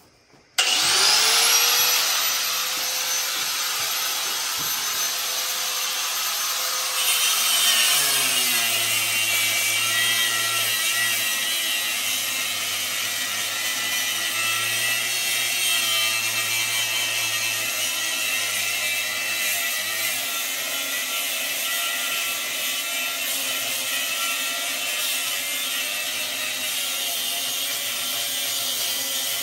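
Handheld angle grinder switched on about half a second in, its whine rising quickly to a steady pitch. About 8 s in the pitch drops as the cut-off wheel bites into the steel guard stock, and it keeps cutting under load with a slightly wavering tone.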